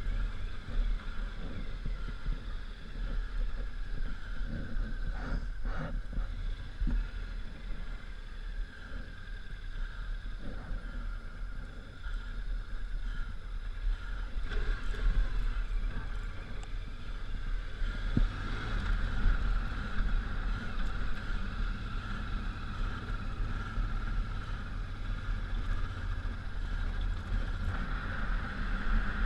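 Honda Africa Twin's 750 cc V-twin engine running while the bike is ridden off-road, with wind noise on the microphone and a few knocks from the rough trail. The engine sound grows louder and brighter about two-thirds of the way through.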